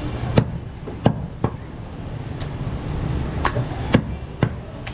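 Butcher's cleaver chopping goat meat on a wooden chopping block, about seven sharp chops in two clusters with a pause in the middle, over a low steady background rumble.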